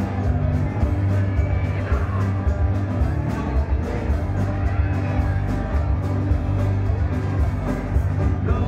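Live rock band playing: electric guitars over a steady bass line and drum beat.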